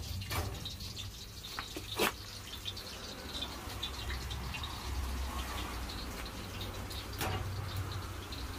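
Scattered crackles and pops over a low steady rumble, from an outdoor cooking fire with a pot of hot cooking oil on it; a few sharper pops stand out, the loudest about two seconds in.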